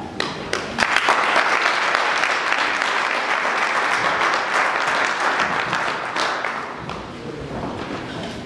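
Audience applauding: a few scattered claps at first, then a full round of clapping that thins out near the end.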